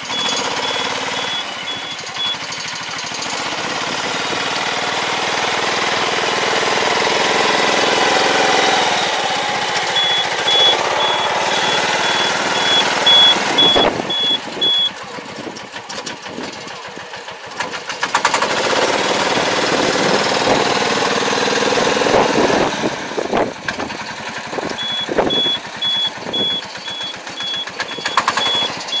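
A small riding farm machine fitted with a homemade fertilizer applicator runs its engine steadily while it turns and backs up. Its reversing alarm beeps rapidly in three bouts: at the start, about a third of the way in, and near the end. A few sharp knocks come in the second half.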